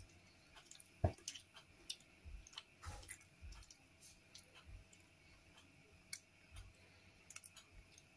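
Faint, irregular clicks and soft wet handling noises as hands work soaked pork casing onto a plastic stuffing funnel, with a short knock about a second in and another near three seconds.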